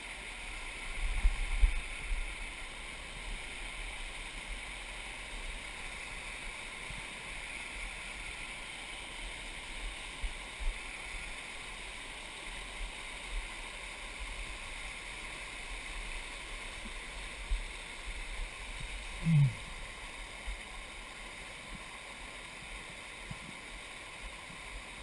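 Spring water rushing and splashing steadily down a cascade of mossy boulders. There are low handling thumps about a second in, and a short low sound falling in pitch about three-quarters of the way through.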